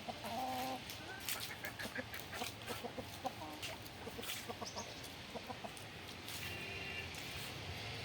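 Domestic chickens clucking, with short calls scattered through and steady background noise behind them.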